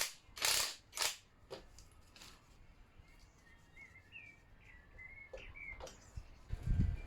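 A few short bursts of hissing noise, about two a second, fading after the first couple of seconds. Then a bird chirps faintly in short rising and falling notes, and a low rumbling noise starts near the end.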